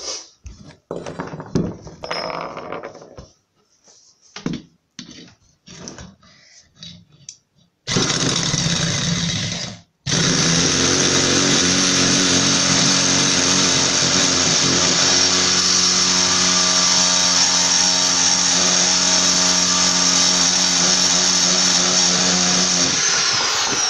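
Electric drill running at a steady speed with its bit held against a workpiece. It runs about two seconds, stops for a moment, then runs steadily for about thirteen seconds before spinning down near the end. Before it starts there are scattered knocks and clatter of handling.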